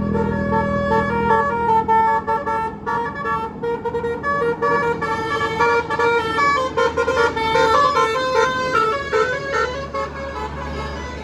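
Bus 'telolet basuri' musical horn playing a fast tune of stepped notes, several tones sounding together, over a low engine hum. The tune stops near the end, leaving the engine running.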